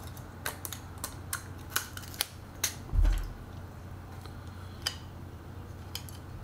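Light clicks and taps of a small circuit board and a film camera body being handled and fitted together, about a dozen in the first three seconds and a few more later. One dull low bump about three seconds in.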